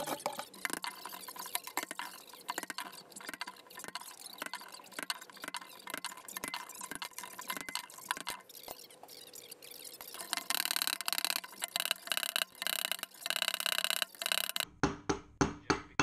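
Steel being worked by hand in a bench vise: irregular clicks and scraping of metal, louder from about two thirds of the way in, then a quick run of hammer blows, about three a second, near the end.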